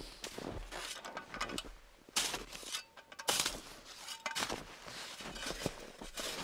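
Crunching and rustling of boots shifting in packed snow and gear being handled at a tent doorway: a string of irregular crunches, with two louder ones about two and three seconds in.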